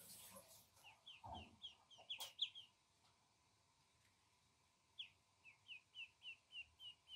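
Duckling peeping: a run of short, high peeps at about four a second, a pause of a couple of seconds, then a second run. There is a light click in the middle of the first run.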